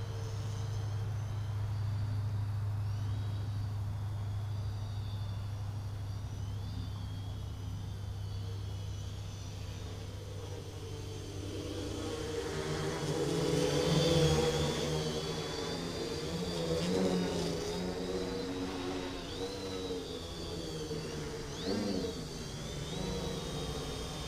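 X525 quadcopter's four Turnigy D2830-11 1000kv brushless outrunner motors spinning 10x4.5 props in flight, a steady buzzing hum. From about halfway through, the pitch rises and falls as the throttle changes, loudest a little past halfway.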